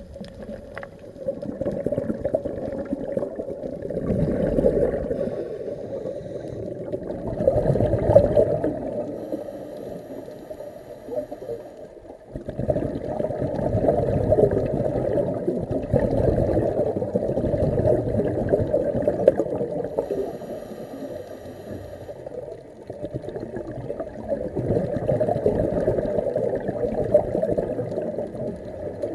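Scuba breathing heard underwater: regulator exhaust bubbles rushing and gurgling in long swells, with quieter dips between breaths.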